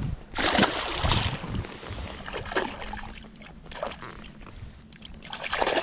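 Water splashing and trickling in several short bursts, with a faint steady low hum underneath.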